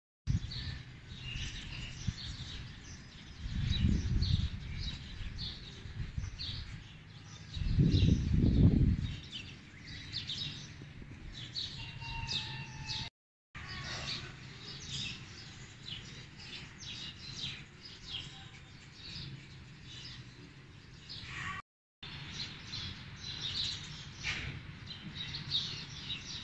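Many small birds chirping busily, short repeated high chirps. About 4 seconds in, and more strongly about 8 seconds in, a low gust of wind rumbles on the microphone.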